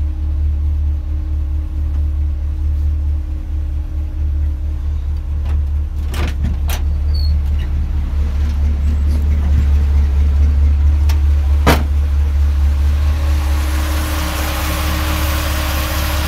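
Chevrolet 350 small-block V8 idling steadily after a cold start, a deep even rumble. There are a few clicks about six seconds in and a sharp knock near twelve seconds. From about thirteen seconds the engine sounds fuller and brighter, as from the open engine bay.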